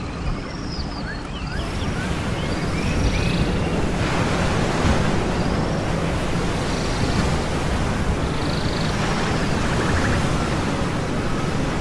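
A steady, dense rushing noise, heaviest in the low end, with a series of high arching chirps that stop about four seconds in and a few fainter ones later.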